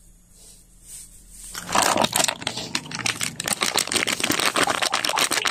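Metal fork mashing boiled taro in a glass bowl: rapid clicking and scraping of the tines against the glass, starting about two seconds in.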